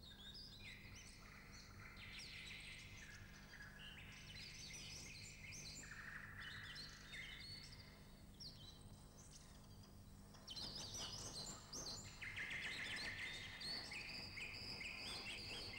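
Faint chatter of many small birds, a dense run of short overlapping chirps and twitters over a steady low hum. The chirping grows louder about ten seconds in.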